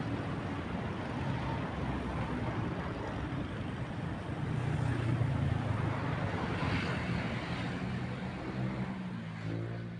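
A boat's engine running steadily: a low drone under a constant rush of wind and water noise, a little louder midway.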